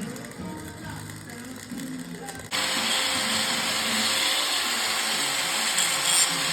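A handheld power tool, most like an angle grinder, switches on about two and a half seconds in and runs at steady speed with a loud hiss. This is metalwork on the sprayer's end nozzles before they are welded.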